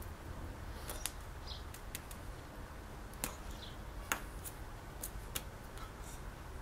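Hands tapping and knocking together during sign language: scattered sharp clicks, the loudest about four seconds in, over a steady low rumble.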